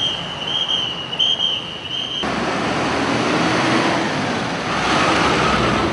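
Road traffic noise with a rushing, wind-like hiss. For about the first two seconds a steady high-pitched tone sounds over it, then cuts off suddenly.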